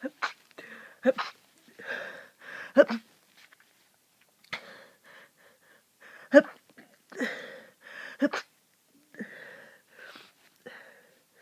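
A person with a cold in a rapid sneezing fit: a string of sharp sneezes in two clusters with quick in-breaths between them, the loudest about six seconds in.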